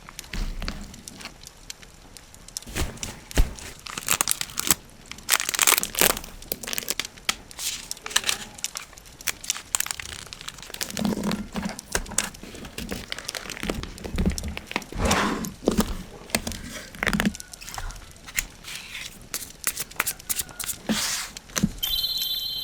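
Packaging being handled by hand: crinkling and rustling of wrapping material, with some tearing and irregular taps and clicks. Near the end a steady high ringing tone comes in.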